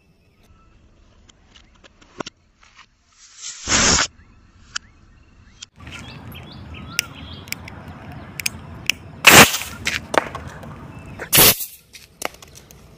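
A plastic water bottle holding nail polish vapour is lit with a lighter. Over a steady hiss come three short, loud bursts of noise: one about four seconds in, the loudest about nine seconds in, and another a couple of seconds later.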